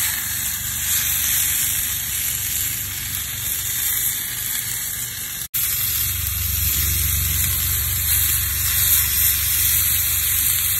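Marinated beef kebab skewers sizzling on hot grill grates over a charcoal barbecue: a steady hiss with a low rumble underneath, cut off for an instant about halfway through.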